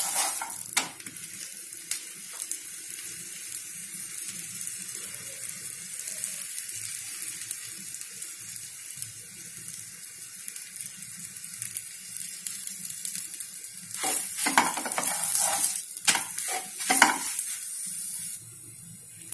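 A chapati sizzling in a lightly oiled pan over a high flame, a steady hiss. Near the end a wooden spatula scrapes and knocks against the pan several times, and then the sizzle drops away.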